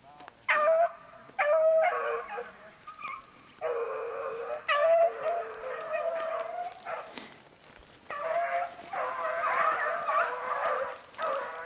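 A pack of beagles baying in overlapping bouts, giving tongue as they run a rabbit's scent line through the brush, with a brief lull about seven seconds in.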